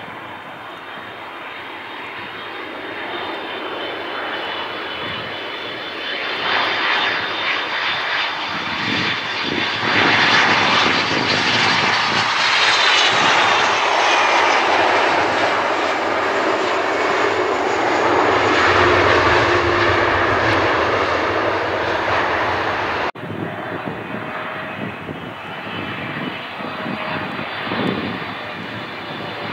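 Twin-engine jet airliner (an Airbus A330) landing: the turbofans' whine builds to its loudest as it goes by and touches down, with a high fan tone falling in pitch as it passes, and a low rumble swells after touchdown. After a sudden cut, another jet airliner (a Boeing 777) whines steadily on approach.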